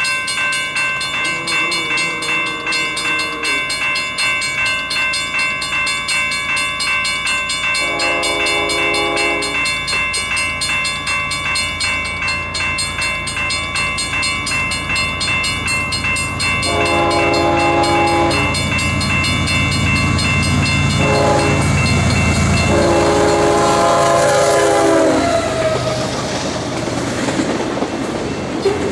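Air horn of an approaching Union Pacific GE Evolution-series diesel locomotive sounding the grade-crossing signal: long, long, short, long. A fainter horn note comes about two seconds in. Under the horn the diesel rumble grows louder until the locomotives pass, and then double-stack intermodal cars roll by with wheels clattering on the rails.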